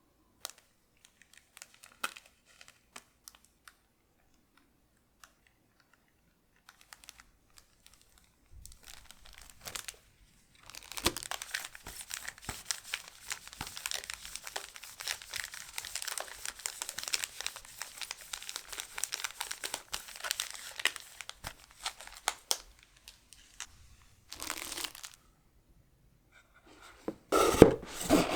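Plastic packaging of a trading-card collection box being handled, crinkling and tearing. It starts with a few faint taps, then about ten seconds of steady crinkling, and louder sharp rustles near the end.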